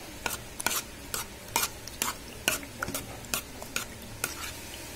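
A spoon stirring and mashing a thick mash of boiled elephant foot yam, chilli powder, turmeric and tamarind water in a pot, with the spoon clicking against the pot about twice a second.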